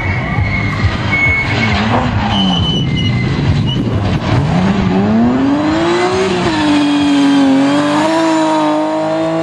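Rally car engine accelerating hard. The engine note wavers low at first, climbs steeply about halfway through, and then holds high near full revs.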